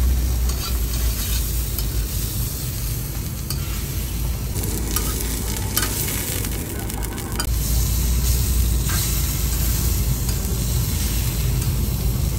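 Pork belly sizzling on a hot griddle as a steady frying hiss, over a low rumble that drops away for about three seconds in the middle.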